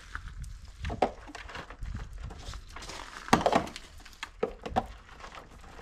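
Hard plastic shelving parts knocking and clicking together as the legs are pushed into the shelf holes. A handful of sharp knocks, the loudest about three seconds in.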